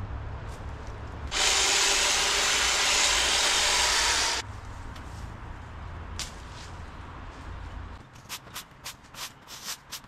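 Stihl leaf blower idling with a low hum, then throttled up into a loud, even rush of air for about three seconds before dropping back to idle. The hum stops about eight seconds in, followed by a quick run of light clicks and steps.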